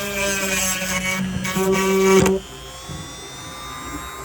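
Handheld rotary tool with a sanding attachment whining as it sands wood; a little over halfway through the sound drops suddenly and the motor carries on with a quieter, steadier whine.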